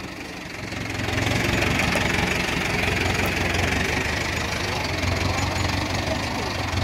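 Mahindra tractor's diesel engine running steadily, getting louder about a second in, while it powers the tractor-mounted crane that holds a concrete fence pole on a chain.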